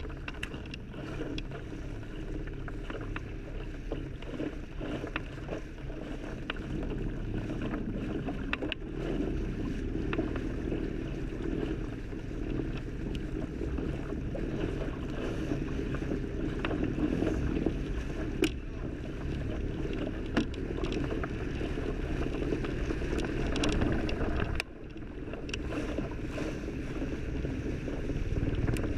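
Water rushing and splashing along the hull of a small sailboat planing fast, with scattered knocks and spray; the rush drops off suddenly about three-quarters of the way through.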